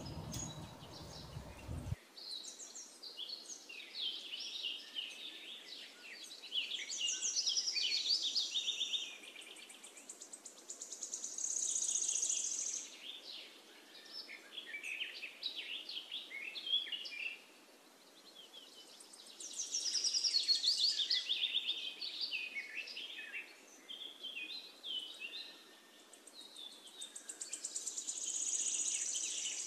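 Birds singing and chirping, with rapid trills, in waves that swell and fade every few seconds.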